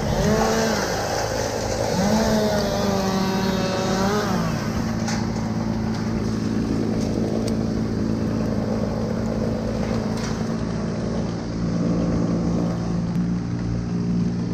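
Chainsaw engine running, its pitch rising and falling twice in the first few seconds, then holding steady.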